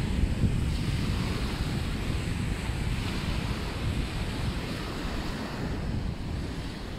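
Small waves washing up the sand and drawing back with a foamy hiss, in gentle swells, over a low rumble of wind on the microphone.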